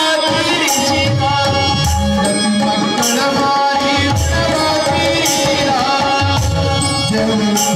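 Live Indian folk-devotional music from a small stage ensemble: long held melody notes over a steady hand-drum beat, with jingling percussion on top.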